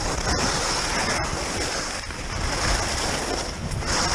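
Skis hissing and scraping over the snow during a downhill run, with wind rushing over the microphone.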